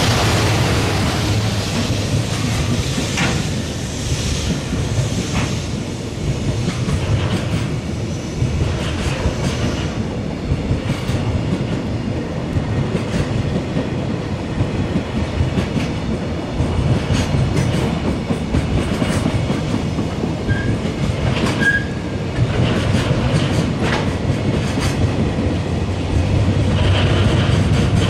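Freight train wagons rolling past, wheels clacking steadily over rail joints with a continuous rumble. There are two short high squeaks a little past the twenty-second mark.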